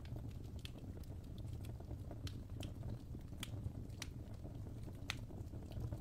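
Wood fire crackling in a fireplace: a steady low rumble of the flames with irregular sharp pops and snaps, a few each second.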